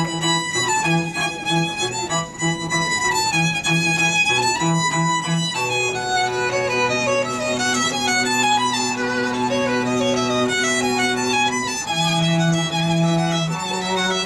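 A violin and cello duo playing: quick repeated bowed notes for the first few seconds, longer held notes through the middle, then repeated notes again near the end.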